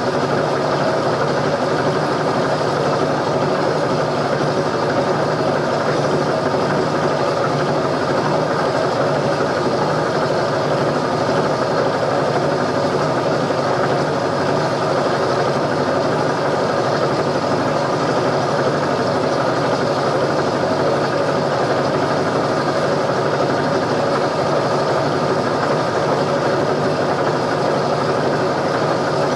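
A motor running steadily: an unchanging mechanical drone with no breaks.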